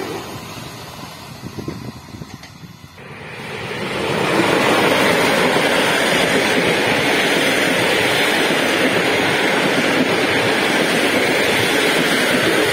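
A passenger train rolling past close by: a steady loud rumble of wheels on rails that builds over about a second and a half, starting about three seconds in, and then holds. Before it, a quieter rolling noise from a passing electric multiple unit.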